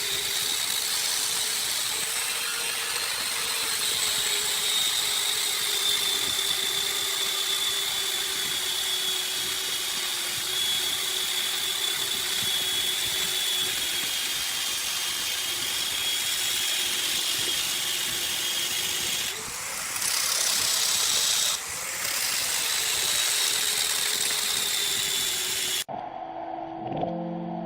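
Electric power tool running steadily with a high whine over a hiss, dipping briefly twice; near the end it cuts off abruptly and piano music starts.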